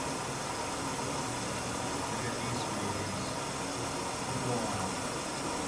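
Mercedes M103 straight-six running steadily under the hood, an even rushing hiss, while its EHA valve is leaking fuel and throwing the mixture off.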